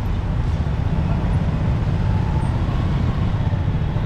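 Steady low rumble of dense city traffic heard from among the moving vehicles: auto-rickshaws, motorbikes and a truck.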